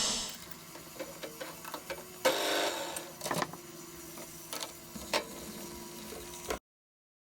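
Scattered light clicks and knocks over a faint steady hum, with a short louder rush of noise a little over two seconds in; the sound cuts off abruptly near the end.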